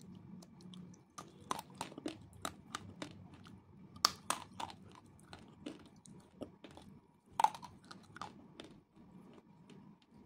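Slate pencil being bitten and chewed: a run of sharp, dry crunches at an irregular pace, the loudest about four seconds in and again about seven and a half seconds in, dying away near the end.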